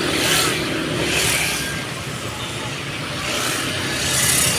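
Motor vehicle engines running steadily, with four short swells of hissing noise.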